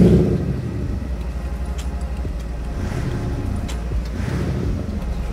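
Mercedes G400 diesel engine just started through its aftermarket tuned exhaust: the start-up rev flare dies away over the first second and the engine settles into a steady idle rumble.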